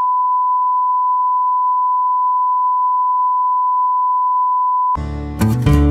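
Steady, unbroken test-tone beep, the single pure tone played with TV colour bars, cutting off about five seconds in as music starts.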